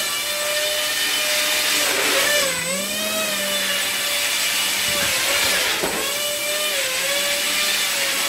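HobbyKing Swamp Dawg RC airboat's electric motor and caged propeller running, a whine whose pitch wavers up and down with the throttle and dips briefly twice past the middle, over a steady hiss of prop wash.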